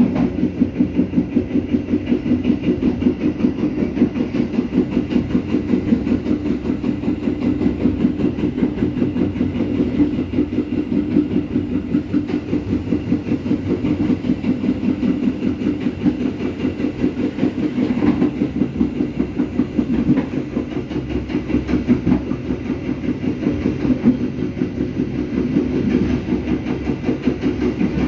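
Passenger train running along the line, heard from inside a moving carriage: steel wheels rolling on the rails with a fast, even clatter over a steady low hum.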